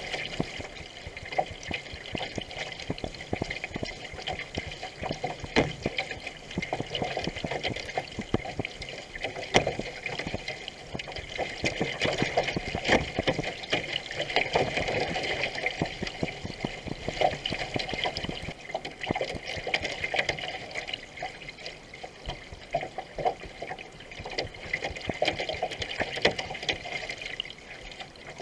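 Water splashing and rushing along the hull of a racing canoe paddled at speed.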